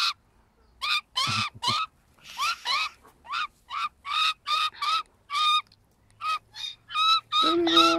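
Young Australian magpie calling in a run of short, repeated squawks, two or three a second, with a brief pause about six seconds in. Near the end a lower, longer, steadier call sets in.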